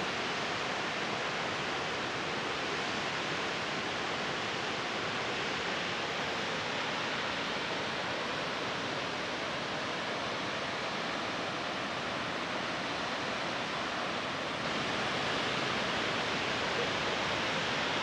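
Steady rushing hiss of a waterfall cascade pouring into a rocky pool, with no break or rhythm. It grows a little louder near the end.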